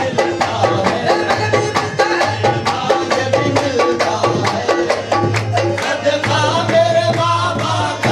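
Qawwali music: a quick, steady tabla rhythm with pitched accompaniment, and a sung line wavering in pitch from about six seconds in.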